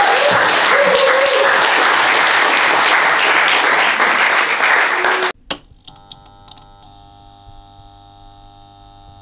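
Audience applauding, with a few voices whooping in the first second, then cut off abruptly a little over five seconds in. A quiet held musical chord with a few light clicks follows.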